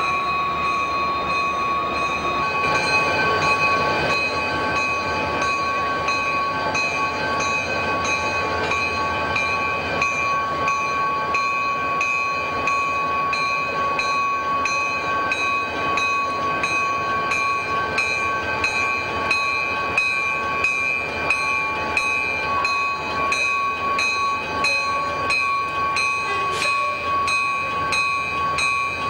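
Steady whine of heavy machinery in a diesel locomotive shop: several high tones held level over a dense rumble. A couple of seconds in, one set of tones sinks slightly and stops as another set starts.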